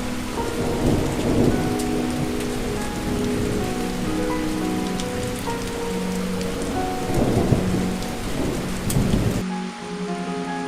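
Steady heavy rain with rumbles of thunder about a second in and again a few seconds before the end, under soft music of slow held notes. Near the end the rain and low rumble cut off abruptly, leaving lighter rain and the music.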